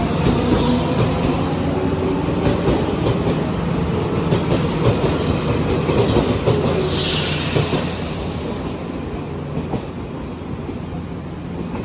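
Electric train moving along the platform: wheels clattering over the rails with a steady motor whine and rumble. A short burst of air hiss comes about seven seconds in, and the train then grows quieter.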